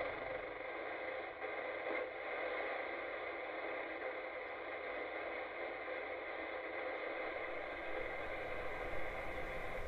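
Steady static-like hiss with several faint held tones running underneath it.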